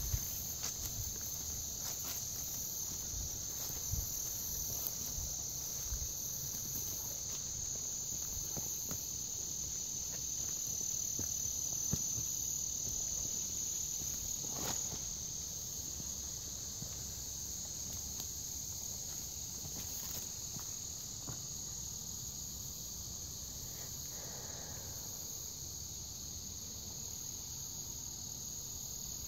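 Steady chorus of insects, a high continuous buzz, with now and then the rustle and crunch of footsteps through undergrowth and leaf litter.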